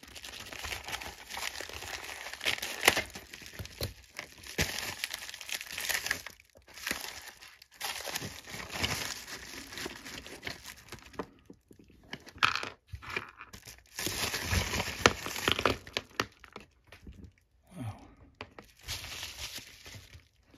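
Crinkling and rustling of a padded bubble mailer as it is cut open with scissors and handled to pull out its contents, with a few sharp clicks of hard plastic parts being set down in the second half.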